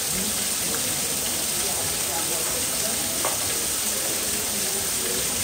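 Steady hissing rush of running water, with no distinct splashes or breaks.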